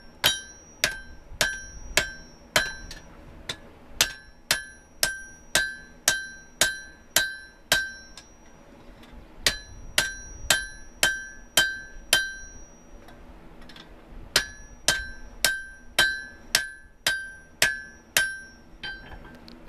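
Blacksmith's hand hammer striking a glowing steel bar on an anvil, about two blows a second, each with a clear high ring. The blows come in runs of several strikes broken by short pauses, three times over.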